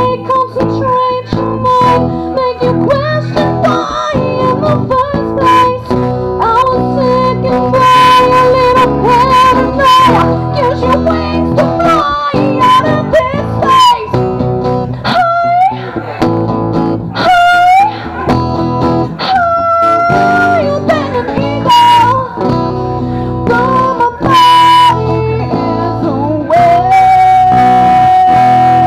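Live acoustic band music: a woman sings a melody over strummed acoustic guitar and a second guitar, holding one long note near the end.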